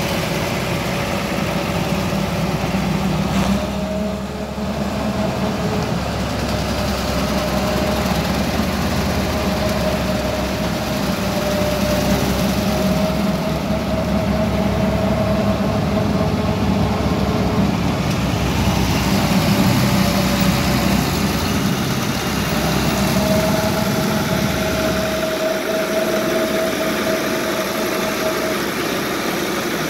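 Tractor engine idling steadily, with a thin whine that wavers a little in pitch. The low rumble fades near the end.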